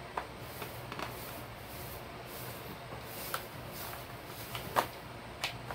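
A few faint, scattered clicks and knocks of a homemade PVC-pipe marble gun being handled and turned, the loudest about three-quarters of the way through, over a low steady hum.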